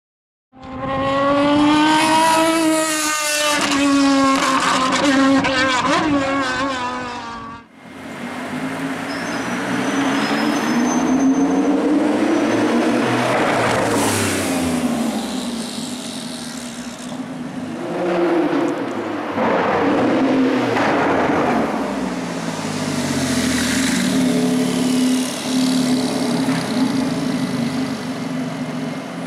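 Porsche 991 Turbo S twin-turbo flat-six revving and accelerating past in street traffic, its note rising and falling several times as it passes and pulls away. It is preceded by a steady, slightly wavering pitched drone that cuts off sharply about eight seconds in.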